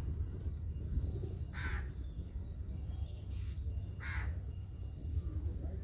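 Crows cawing, three short harsh caws spaced a second or two apart, the middle one fainter, over a steady low rumble.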